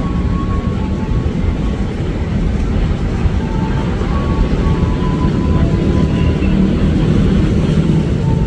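KRL Commuter Line electric train rolling into the station along a curve: a steady rumble of wheels on rail that grows slightly louder as it comes past, with a faint high tone coming and going over it.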